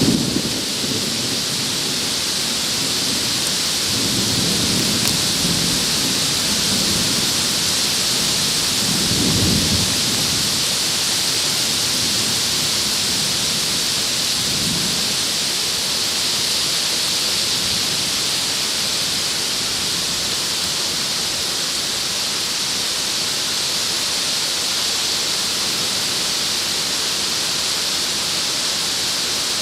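Heavy downburst rain and storm wind as a steady, loud hiss. Low rumbles swell up a few times in the first fifteen seconds or so.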